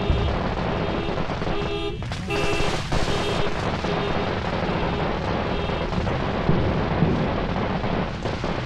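Ground fountain firework spraying sparks with a steady, dense hissing crackle. Scattered bangs from other fireworks go off in the neighbourhood.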